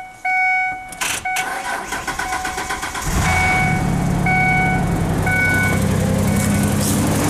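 A 2001 Ford Ranger's 4.0 L V6 is cranked on the starter for about two seconds, catches about three seconds in, and settles into an idle with a misfire. The truck's warning chime dings about once a second throughout.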